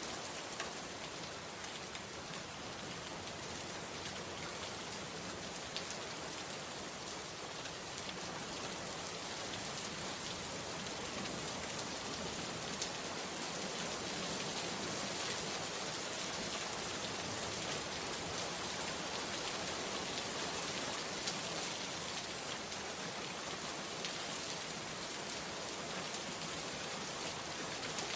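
Steady rain falling and pattering on a surface, with a few sharper drop ticks standing out now and then.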